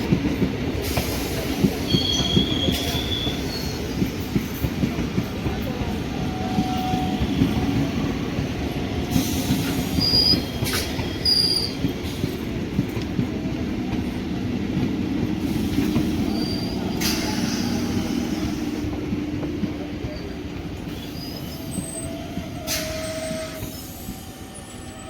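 Electric multiple-unit (EMU) local train running past at speed: a steady rumble of wheels on rail with frequent short clatters from the rail joints and a few brief high wheel squeals, easing off toward the end.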